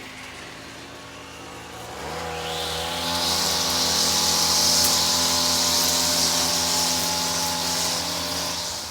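String edger motor revving up about two seconds in, running steadily at high speed, then easing off near the end.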